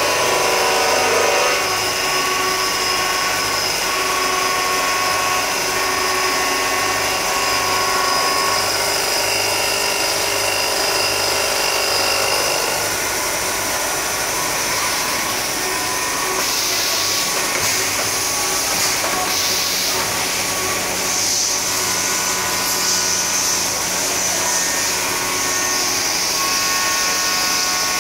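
CNC machining center face-milling a metal block: a steady whine from the spindle and cutter, with a hissing layer coming in a little past halfway.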